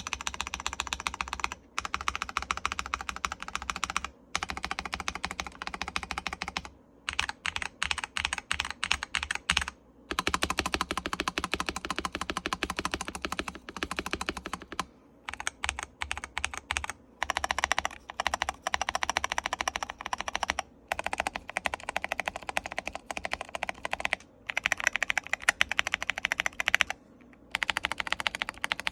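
Typing on a KBD67 Lite mechanical keyboard with stock Akko Cream Blue V3 clicky switches under PBT keycaps: rapid runs of crisp keystrokes in bursts of a few seconds, broken by short pauses.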